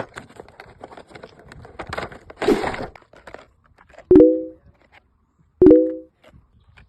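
Crinkling and rustling, like packaging being handled, for the first few seconds. Then a short electronic beep of a few blended pitches, repeating about every second and a half, three times.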